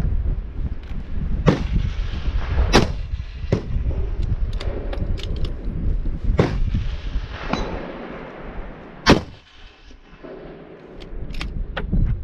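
Rifle shots, three loud reports a few seconds apart among several fainter cracks, over a low wind rumble on the microphone.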